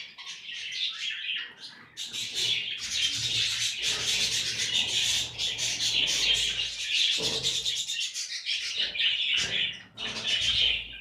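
A flock of caged budgerigars and finches chattering and chirping continuously, many short high calls overlapping, with brief lulls about two seconds in and near the end.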